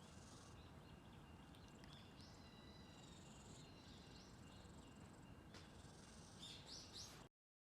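Faint outdoor ambience: a low rumble with thin, high insect chirps over it. It cuts off abruptly to silence near the end.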